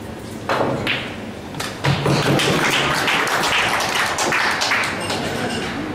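A sharp knock of pool balls, a second knock, then an audience applauding for about three and a half seconds as the frame ends.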